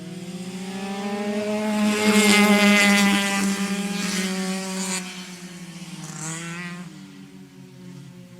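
Go-kart engine passing by: it grows louder to a peak about two to three seconds in, drops slightly in pitch as it goes past, then fades away, with a smaller swell around six seconds in.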